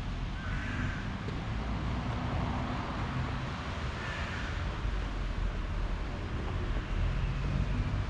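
City street ambience: a steady low rumble of road traffic mixed with wind on the microphone.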